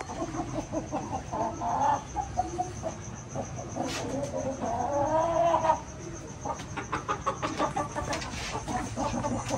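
Chickens clucking with short repeated calls, and one longer drawn-out call about four seconds in. A run of quick clicks comes near the end.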